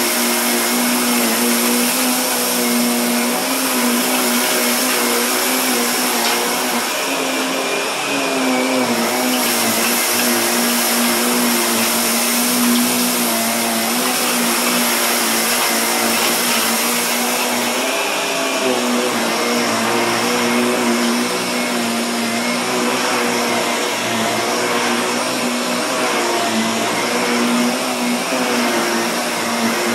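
Upright vacuum cleaner running steadily as it is pushed back and forth over a low-pile rug, sucking up fine dirt. It gives a continuous motor hum with a thin high whine, and the pitch wavers slightly now and then.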